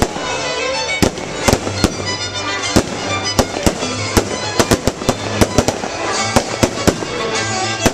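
Fireworks going off in the sky: a rapid, irregular run of sharp bangs and crackles from bursting shells, thickest about halfway through, with music playing underneath.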